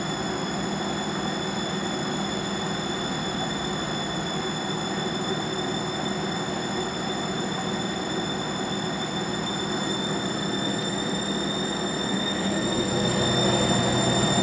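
Gorenje WaveActive washing machine's drum motor running with a steady rushing noise and a high whine, getting louder near the end. This is the horrible motor sound the machine makes while suds-locking, when it has detected too much foam.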